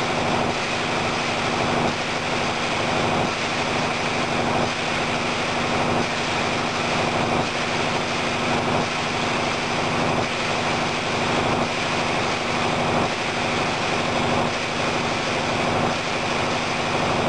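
Machinery running steadily: an even mechanical drone with a constant low hum.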